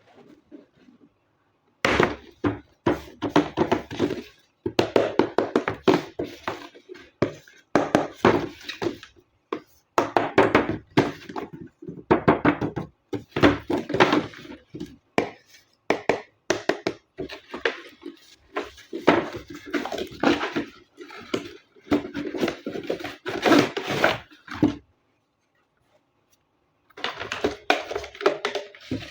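Unboxing handling sounds: cardboard and plastic packaging and a toy being handled, a dense run of knocks, taps and rustles that stops for a couple of seconds near the end and then starts again.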